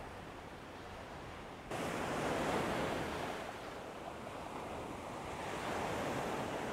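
Ocean surf breaking and washing up the beach, with wind rumbling on the microphone. The surf gets abruptly louder just under two seconds in and swells again near the end.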